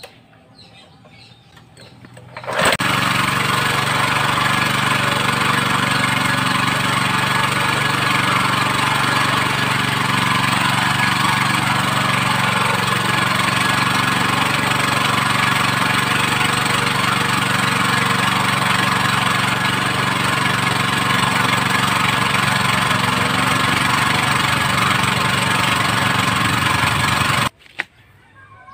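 New Ousen 6.5 hp single-cylinder four-stroke gasoline engine running steadily at a constant speed on its break-in run. It comes in suddenly about two and a half seconds in and cuts off abruptly near the end: the engine stops, which the owner puts down to it probably running out of gasoline.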